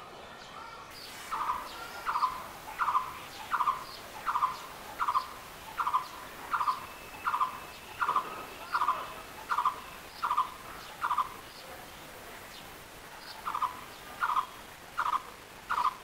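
Blue-throated Barbet calling: a long series of loud, evenly repeated call notes, about one every three-quarters of a second. The series breaks off for a couple of seconds near the middle and then starts again.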